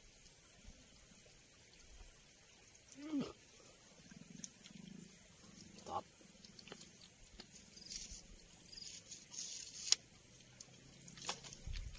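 Insects chirring steadily at a high pitch, with a few short, faint sounds over it, among them the small splash of a wader fish being lifted from the water on a fishing line.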